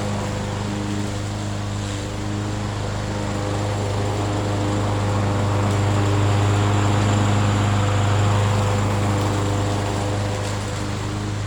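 Engine of a Murray 22-inch self-propelled walk-behind lawn mower running steadily at mowing speed, with a low, even hum that swells slightly partway through.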